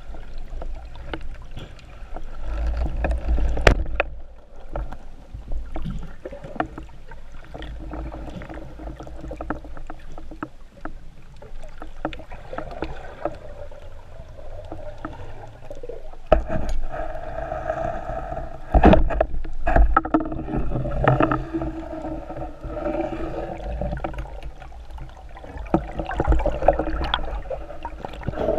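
Muffled underwater sound picked up through a camera's waterproof housing: a constant low water rumble with scattered sharp clicks and knocks, the loudest about 4 and 19 seconds in. From about halfway through, a steady hum joins in.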